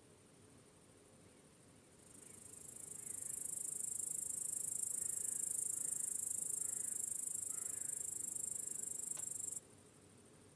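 Crickets chirping in a dense, high-pitched trill that fades in after about two seconds, holds steady, and then cuts off abruptly near the end.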